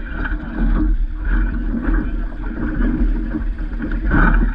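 Water rushing and slapping along the hull of a Vaucluse Junior sailing dinghy under way, with a steady low rumble of wind on the microphone. The splashing grows briefly louder near the end.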